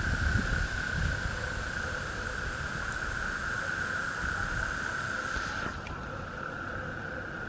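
Steady night chorus of insects and frogs: a continuous high-pitched trill with a second, higher steady tone. The higher part and its hiss drop away abruptly about six seconds in, over a low rumble.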